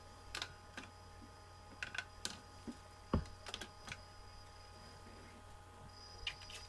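Scattered light taps and clicks of a strip of cardstock being handled and laid down on a tabletop, with one louder thump about three seconds in.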